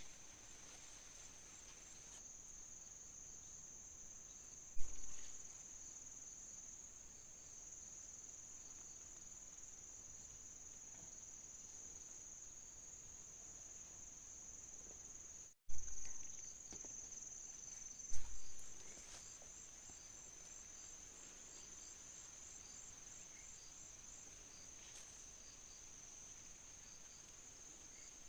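Insects, crickets by their sound, chirring in a steady high-pitched drone with a faint pulsing trill. Three dull low thumps break in, about five seconds in and twice more a little past halfway, the second just after a brief dropout.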